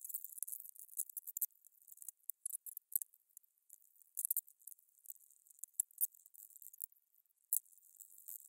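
Stiff bristle brush scrubbing the cast-aluminum LS oil pan through foaming engine degreaser: quick, irregular hissing strokes.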